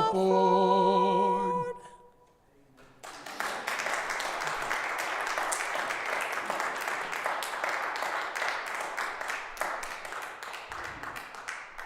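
Two singers hold the last sung note of a hymn for about a second and a half and stop. After a short pause, a congregation applauds steadily for about nine seconds, with many individual claps, before the applause dies away.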